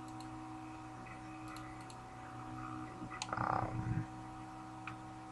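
Faint steady electrical hum with a few soft computer mouse clicks, and a brief muffled sound about three and a half seconds in.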